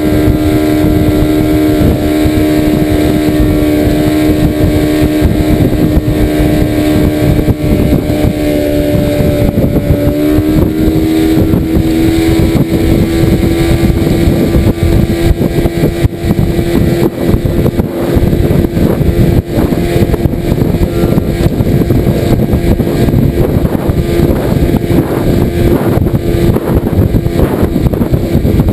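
Outboard motor running at steady cruising speed, pushing a small aluminium skiff. About ten seconds in, the revs rise slightly and then hold steady.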